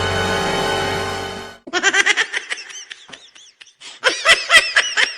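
A held musical chord with a low bass note cuts off suddenly about a second and a half in. It is followed by a rapid, high-pitched giggling laugh sound effect in quick short bursts.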